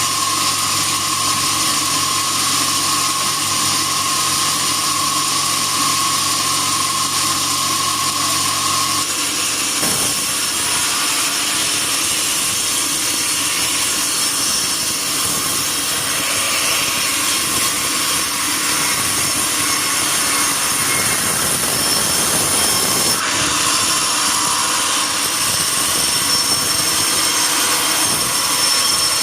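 Sawmill bandsaw running and sawing wood: a loud, steady mechanical noise with a high tone for the first nine seconds or so, after which the sound turns to a broader, rougher hiss.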